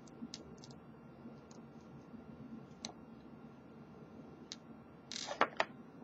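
Faint, scattered small clicks of a brass lock cylinder being worked as a duct-tape plug follower pushes the plug out, then a louder cluster of clicks and a brief scrape about five seconds in as the plug slides free of the housing.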